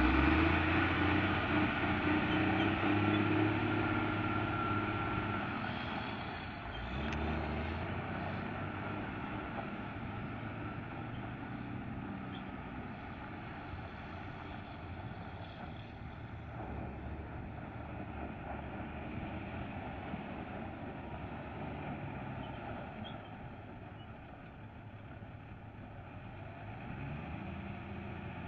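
1993 Volvo Autocar water truck's diesel engine pulling away. It is loud for the first few seconds, then fades gradually as the truck drives off, rising a little again near the end.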